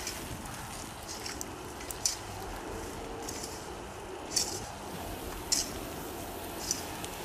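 Wildfire burning through brush and trees: a steady rushing noise with about six sharp, high crackling pops at irregular intervals, the loudest about two, four and a half and five and a half seconds in.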